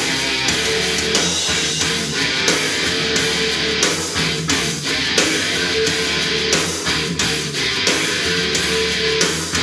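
A rock song with strummed electric guitar over a steady drum beat, played back through a Marshall Stockwell II portable Bluetooth speaker.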